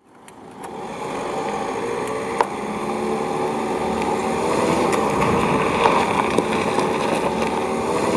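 Peugeot van driving slowly along a gravel track, its engine running steadily and its tyres crunching over the gravel. The sound fades in over about the first second and grows slightly louder as the van comes closer.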